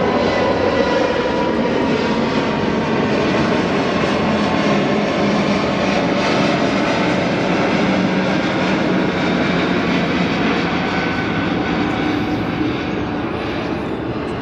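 Airbus A320neo's Pratt & Whitney PW1100G geared turbofans at climb thrust just after takeoff: a steady jet rumble and roar with a faint hum in it, slowly fading over the last few seconds as the airliner climbs away.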